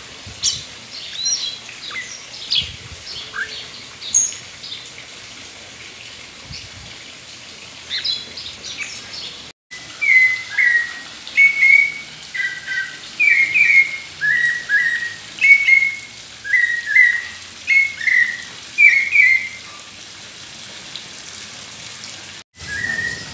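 Caged sabiá casaca-de-couro singing: scattered high chirps at first, then, after a brief gap, about ten seconds of loud, repeated short two-note whistled phrases, roughly one or two a second.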